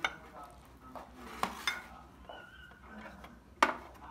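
A wooden spoon scraping and knocking against a ceramic bowl as it digs out a scoop of cooked rice, with a few sharp clinks; the loudest comes near the end.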